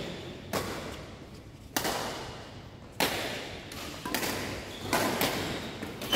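Badminton rackets striking a shuttlecock in a doubles rally: sharp cracks roughly every second, coming quicker near the end, each trailing a long echo in the large hall.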